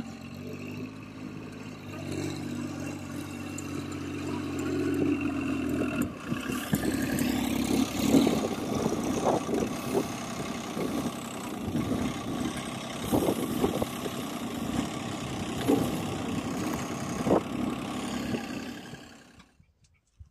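John Deere 5105 tractor's three-cylinder diesel engine running steadily and getting louder as its front loader works. About six seconds in, the sound changes abruptly to the engine mixed with irregular knocks and clatter while the loader bucket tips straw chaff into the truck. The sound fades out near the end.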